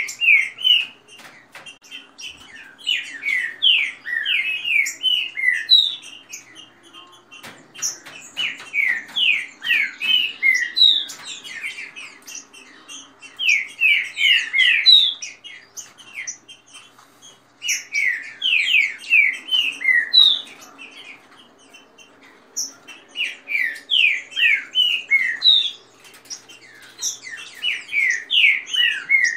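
Green-winged saltators (trinca-ferro) singing their fast song: loud phrases of quick, down-slurred whistled notes repeated every three to five seconds, with faint high chirps from other birds between them.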